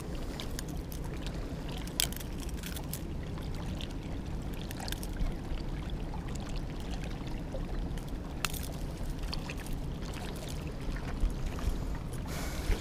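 Steady low rush of water and wind at a rocky river edge, with a few sharp clicks and knocks as a caught flathead is handled and a lure is worked out of its mouth with pliers.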